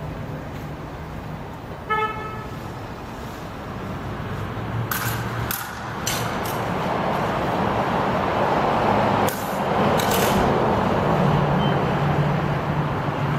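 Road traffic noise that grows louder through the second half, with a brief horn-like toot about two seconds in and a few sharp clicks.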